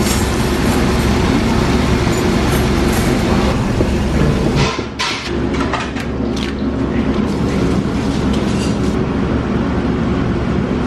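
Steady low mechanical hum of commercial kitchen equipment, with a few short rustles and clicks about four to six seconds in.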